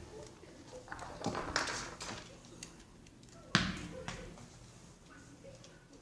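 A puppy playing with a toy doll: scattered knocks and thumps, the loudest about three and a half seconds in.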